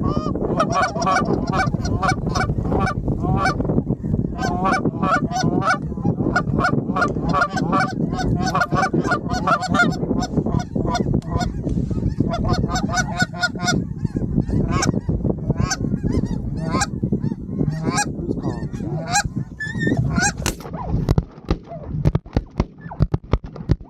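A flock of geese honking in a dense, continuous chorus of overlapping calls, thinning out near the end, where several sharp bangs break in.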